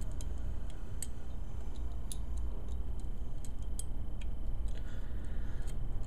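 Light, irregular clicks of ceramic bearing balls being pressed one at a time into a hub bearing's retainer, over a steady low hum.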